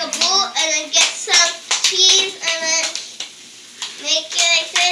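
A child's high voice, sing-song and without clear words, over soft slaps of a ball of masa dough being patted between a girl's palms to shape a pupusa. The voice breaks off for about a second past the middle, then starts again.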